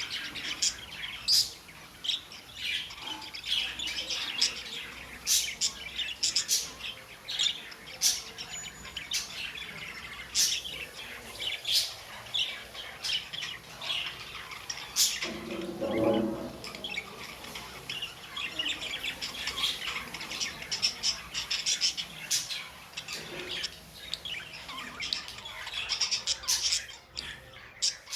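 Budgies chattering: continuous high chirps and warbles broken by sharp calls. About halfway through a short lower-pitched sound comes in under the chirping.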